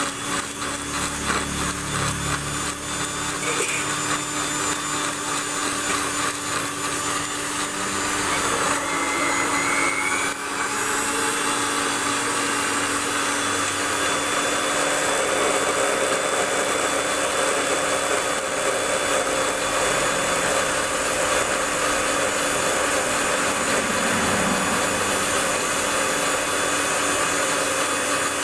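Sujata electric mixer-grinder running steadily at full speed, blending pomegranate seeds and fruit into juice, with a high whirring hum.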